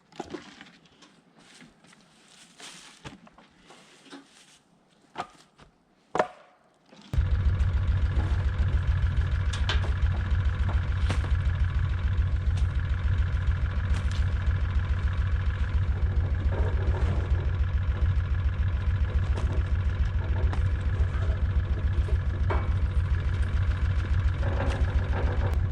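A few scattered knocks over a quiet background, then, about seven seconds in, a vehicle engine comes in abruptly and runs on steadily with a loud, fast low pulsing.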